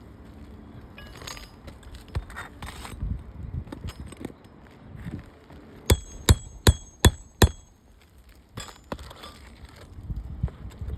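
Five quick hammer blows on a steel roofing tool, about 0.4 s apart and starting about six seconds in, each ringing briefly like struck metal. Softer scraping and rustling of work on the asphalt shingles before and after.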